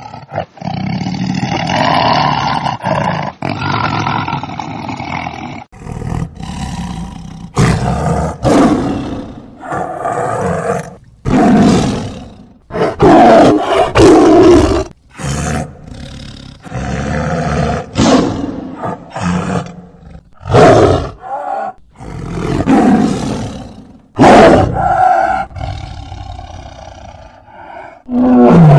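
Tiger growling and roaring: one long, unbroken growl for about the first six seconds, then a run of separate loud roars and snarls with short breaks between them.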